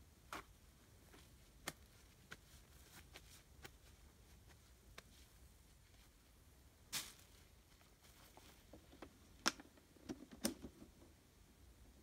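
Near silence broken by a few sharp clicks and knocks, the loudest two near the end, from handling the hanging plastic water bottle and its wooden stand.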